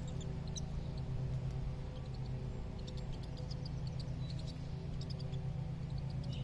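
Short, faint, high-pitched chips and squeaks of small birds, scattered irregularly over a steady low hum.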